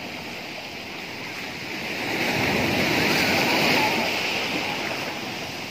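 Sea surf washing up the shore: a wave rushes in about two seconds in, is loudest around three to four seconds in, then fades as it draws back.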